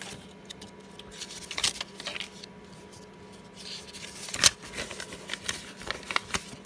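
Paper inserts being handled and slid across a desk: scattered light rustles and taps, with one sharper tap about two-thirds of the way through.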